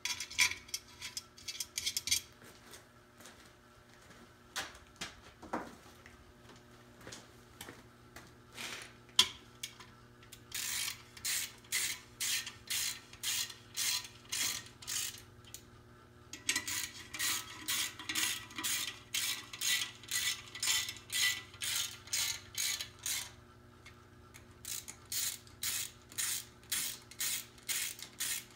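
Hand socket ratchet tightening the lifter-retainer ('spider') bolts, clicking in even back-and-forth strokes of about two a second, in three long runs with short pauses between them. Scattered metal knocks and clinks come first as the parts are set in place.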